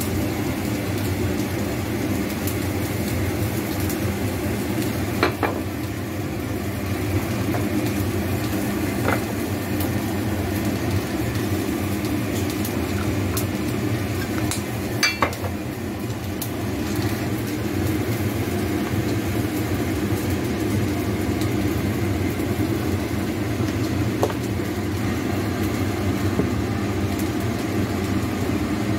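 A steady low hum of kitchen background noise, with a few light clinks as sauce bottles are handled over a ceramic bowl, the sharpest about halfway through.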